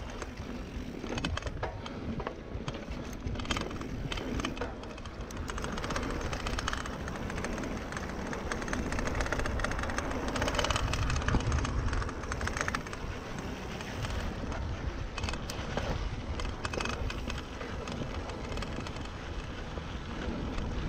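Mountain bike riding fast down dry dirt singletrack: wind rushing over the microphone, tyres rolling on dirt, and the bike rattling over bumps, loudest around halfway through.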